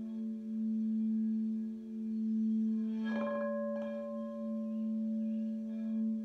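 Large frosted crystal singing bowl sung with a mallet around its rim, giving a steady low hum with ringing overtones. About halfway through come two light knocks, and a higher tone rings on after them.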